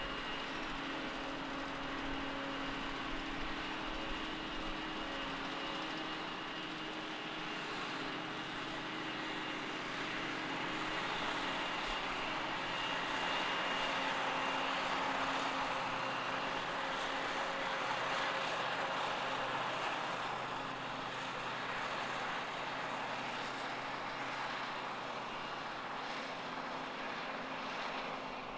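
Krone BiG X forage harvester running steadily while chopping maize: a deep diesel engine drone with a broad rushing noise from the chopper and crop flow, loudest around the middle.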